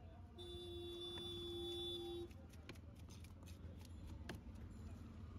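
A horn sounds one steady note for about two seconds near the start, over a low background hum. Then come scattered sharp clicks and knocks from a big knife working a large bighead carp on a wooden chopping block, the sharpest about four seconds in.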